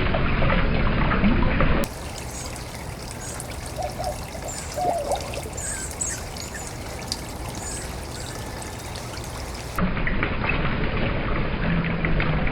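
Steady trickling, running-water noise, louder for the first two seconds and again from about ten seconds in, with the sound changing abruptly at each point. Small birds give short chirps during the quieter middle stretch.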